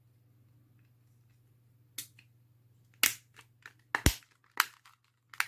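Plastic TV remote control casing being snapped back together: a series of sharp clicks and snaps, the loudest about four seconds in with a low thump.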